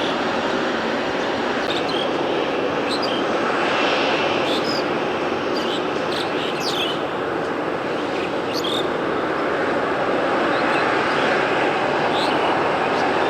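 Jet airliner engines running with a steady rushing roar that grows a little louder in the later part, while birds chirp briefly several times over it.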